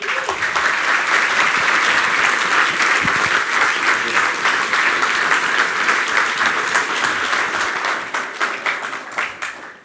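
Audience applauding: dense, steady clapping that starts at once and dies away over the last couple of seconds.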